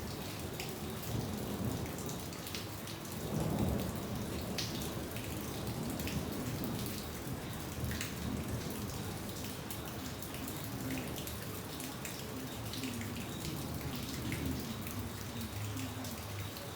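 Rain falling in a thunderstorm, with many separate drops ticking on a surface, and a short low rumble, likely thunder, about three and a half seconds in.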